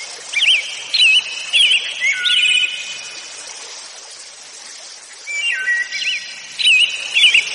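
Songbird singing quick whistled, chirping notes in two runs of about two and a half seconds each, over a steady background hiss.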